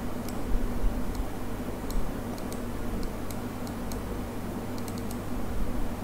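Steady background hum with a faint steady tone, with about a dozen faint, irregularly spaced high-pitched clicks.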